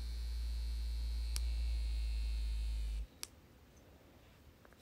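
Handheld silicone facial massager's vibration motor running with a steady low hum, cutting off suddenly about three seconds in as it is switched off, followed by a single click.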